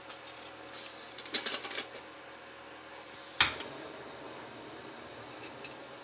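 Small clicks and rattles of objects being handled, with one sharp knock about three and a half seconds in and a few light clicks near the end.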